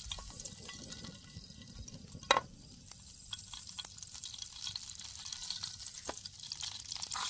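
Hot oil faintly sizzling and crackling in a frying pan over a portable gas stove, with scattered small ticks and one sharp click about two seconds in.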